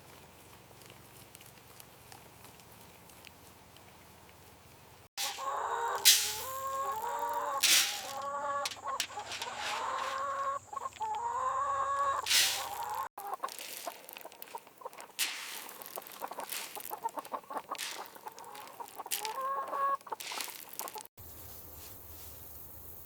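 Chickens clucking loudly in short, stepped calls, with sharp clicks and knocks mixed in, after about five seconds of faint background. The sound changes abruptly about thirteen and twenty-one seconds in, with the clucking thinning out before it ends.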